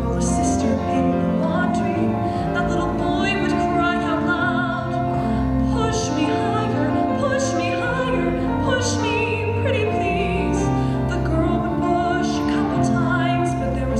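A woman singing solo into a handheld microphone, holding long notes with vibrato over a sustained instrumental accompaniment.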